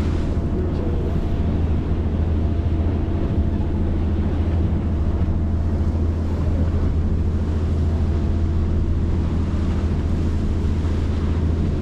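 Tour boat's engines running steadily underway, a low even drone, with wind and water noise over it.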